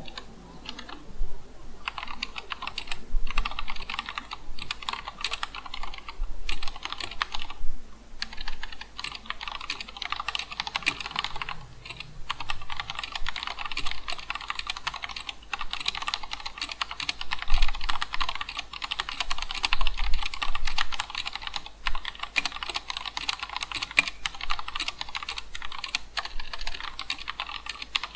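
Typing on an Akko 3087 DS Horizon tenkeyless mechanical keyboard with Cherry MX Red linear switches: quick runs of clacky keystrokes with a few short pauses and heavier strikes now and then.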